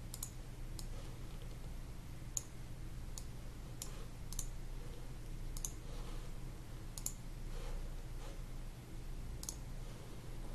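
Computer mouse buttons clicking, single and double clicks at irregular gaps of about a second, over a faint steady low electrical hum.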